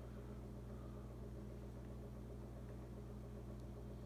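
Steady low hum of room noise, with a couple of faint ticks near the end.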